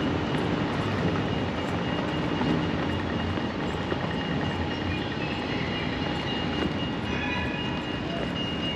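Steady city street traffic noise with a vehicle rumble and a thin, steady high whine; a few more high tones join in about seven seconds in.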